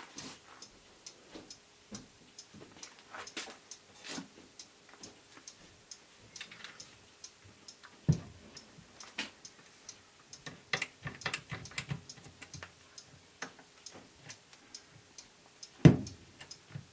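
A clock ticking steadily, with a few louder knocks in between, two of them standing out about halfway and near the end.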